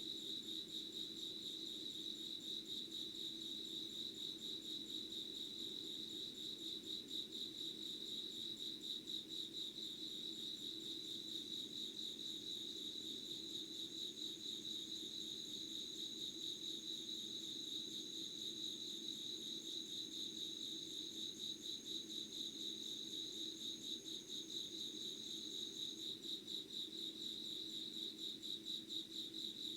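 A chorus of crickets and other night insects, trilling in a steady, rapidly pulsing drone. A second, higher continuous trill comes in about twelve seconds in and cuts off suddenly some fourteen seconds later.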